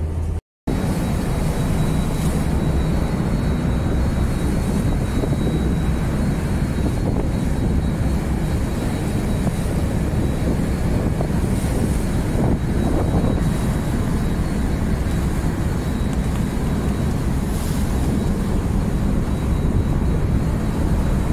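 Steady, loud drone of a tugboat's engines with churning water and wind, heard on deck. It cuts out for a moment about half a second in, then runs on unchanged.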